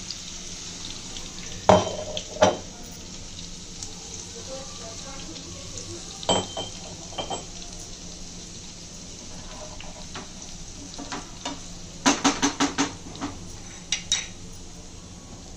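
Oil sizzling steadily in a frying pan with cumin, asafoetida and crushed garlic, while metal utensils knock and clink against it: two sharp knocks about two seconds in, a few more in the middle, and a quick run of about six clinks near the end.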